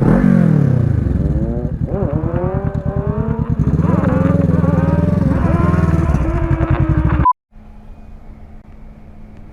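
Motorcycle engine revved hard, its pitch swinging up and down, very loud. After about seven seconds it cuts off suddenly, and a much fainter steady engine hum follows.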